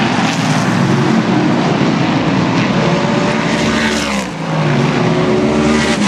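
Race car engines running hard at speed on an oval track during practice, a loud, continuous engine note. About four seconds in the sound dips briefly and the pitch falls and then climbs again as the cars come through.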